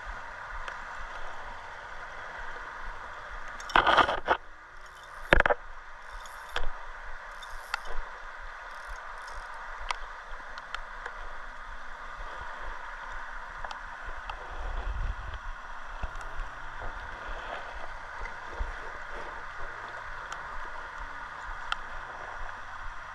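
Steady rush of a fast-flowing river current. About four to eight seconds in, a few short, loud, sharp rustling knocks rise over it.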